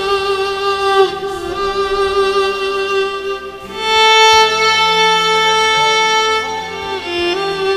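Violin playing a slow melody of long held notes, changing pitch only a few times.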